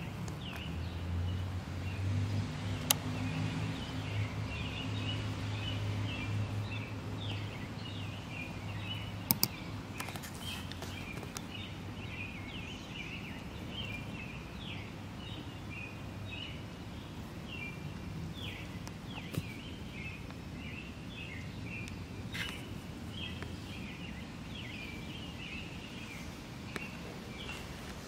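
Outdoor garden ambience with birds chirping continuously, many short quick calls. A low hum sits under them for about the first ten seconds, and there are a few sharp clicks.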